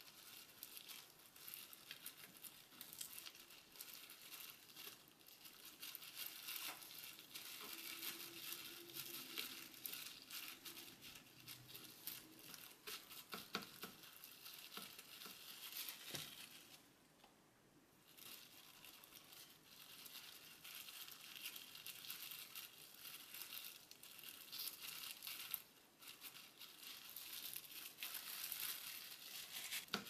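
Thin disposable plastic glove crinkling as a hand spreads rice and handles seasoned fish-cake strips on dried seaweed sheets: a quiet, continuous crackly rustle with many small clicks and a brief lull past the middle.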